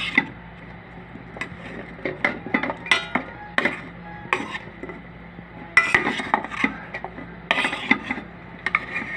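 Metal spoon clinking and scraping against a rice cooker's inner pot while turning sweet potato slices frying in butter: irregular sharp taps, with a couple of longer scrapes past the middle.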